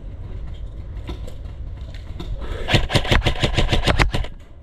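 Airsoft gun firing a rapid string of about a dozen shots, starting about two and a half seconds in and lasting about a second and a half.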